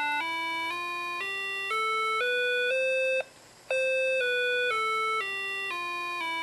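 Square-wave tones from a Parallax Propeller microcontroller's GPIO pin, played through a small LM386 amplifier's speaker, stepping up a C major scale one note about every half second to the top C. After a half-second pause the tones step back down the scale.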